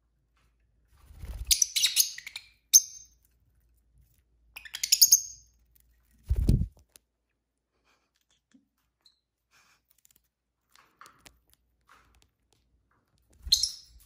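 Pet lovebirds chirping in short bursts of high, quick chirps: about a second in, around five seconds in, and again near the end. A dull thump comes about six and a half seconds in, and a few faint clicks follow it.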